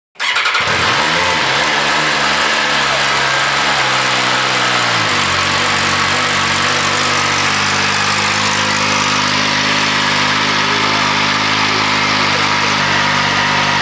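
MV Agusta Brutale 800 Dragster's three-cylinder engine running loud. Its pitch wavers for the first few seconds, then it settles into a steady idle about five seconds in.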